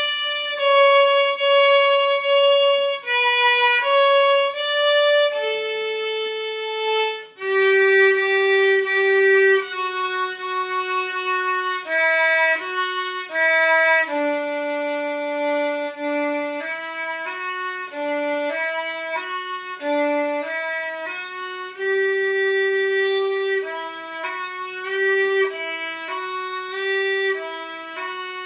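Solo violin playing a slow melody in 6/8, one note at a time with slurred notes, starting on D on the A string.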